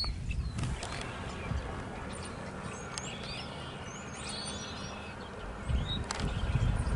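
Birds chirping a few short calls over quiet outdoor ambience, then wind buffeting the microphone with a low rumble over the last second or so.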